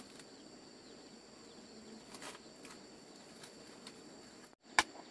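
Dry corn husks rustling and tearing as they are peeled by hand from fresh ears of corn, over a steady high chirring of insects. One sharp snap near the end is the loudest sound.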